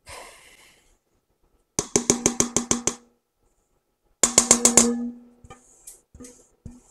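A stainless steel mixing bowl rapped against the rim of a stand mixer's metal bowl to knock its dry macaron ingredients in: a short rustle, then two quick runs of about eight to ten ringing metal taps each, then a few lighter taps.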